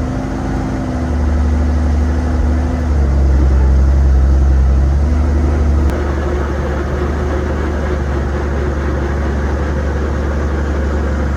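Small helicopter's engine running just after start-up, a steady low drone. The tone shifts slightly and the level dips a little about six seconds in.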